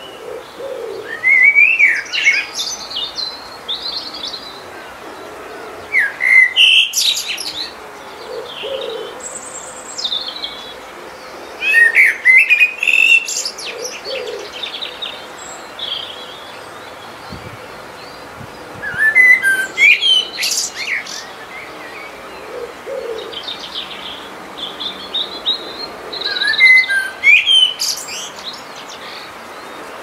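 Birdsong: a songbird sings loud clusters of quick, varied chirps about every six seconds, with a soft low call now and then in between.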